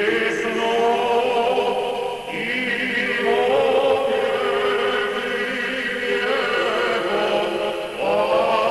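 Background music: a choir chanting in long held notes, with a break between phrases about two seconds in and another near the end.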